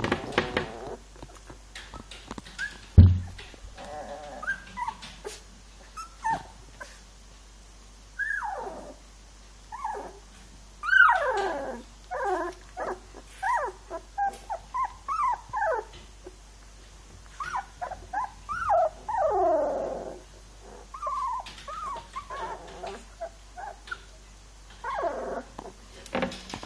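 Young puppies whimpering and whining: many short, high cries that mostly fall in pitch, coming in quick succession for most of the stretch. A single sharp thump about three seconds in is the loudest sound.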